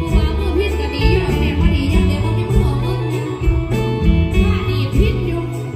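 Live amplified Isan band music: an electric phin (plucked lute) over bass and a steady drum beat, with singing.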